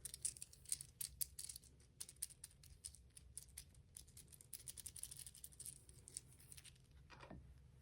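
Soft, rapid, irregular clicking of a 3D-printed articulated plastic toy as its segments are worked back and forth by hand.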